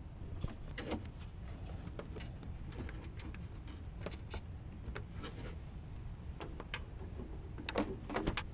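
Irregular light clicks, knocks and rubbing from hands fitting a rubber plug onto the plastic power steering reservoir hose fitting and handling parts in the engine bay, with a quick run of louder clicks near the end. A steady low rumble and a faint steady hiss lie underneath.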